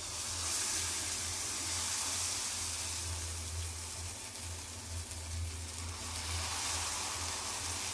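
Vermicelli dosa batter sizzling steadily on a hot dosa pan as it is ladled on and spread out, an even hiss with a low hum underneath.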